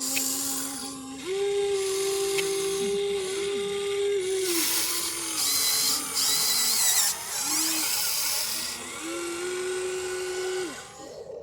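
Electric motors of a remote-control excavator whining as it works, starting and stopping in several stretches, the pitch dipping at times under load.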